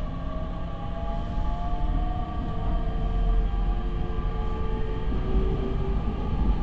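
JR East E501 series electric train under power, heard from inside a motor car: the Toshiba IGBT-VVVF inverter and MT70 traction motors whine in several tones that glide slowly in pitch over a steady rumble of wheels on rail. About two seconds in, the series' odd wavering 'howa~n' tone comes through, one that moves opposite to the acceleration and that the uploader guesses is a sideband.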